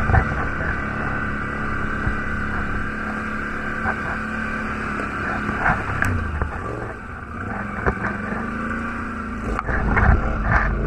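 Quad bike (ATV) engine running as it is ridden over a rough, muddy trail, the revs rising and falling, with a few sharp knocks as the machine bounces over the ground.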